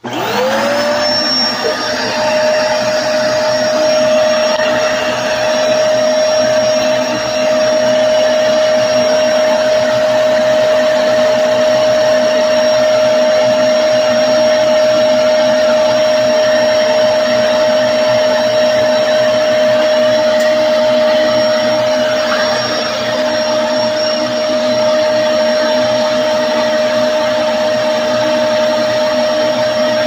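Upright bagless vacuum cleaner switched on: the motor spins up to a steady high whine within about a second, then runs steadily.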